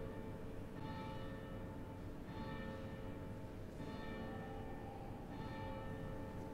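A single church bell tolled slowly and evenly, about one stroke every second and a half, four strokes in all. Each stroke rings on into the next.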